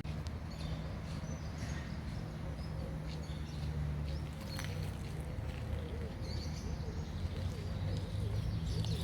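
Small songbirds chirping and twittering, with many short high calls scattered throughout, over a steady low rumble.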